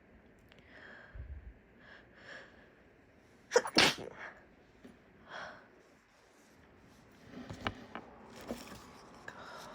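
A woman with a bad cold sneezing: a few soft catching breaths, then one loud, harsh sneeze about three and a half seconds in, followed by more breathy sounds.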